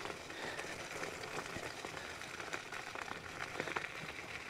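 Electric scooter tyres rolling up a loose gravel track: a steady low hiss of grit with scattered small crackles of stones under the wheels.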